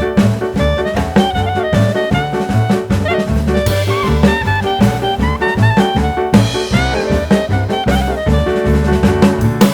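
Upbeat background music with a steady drum beat and brass-like melodic lines, in a jazz or swing style.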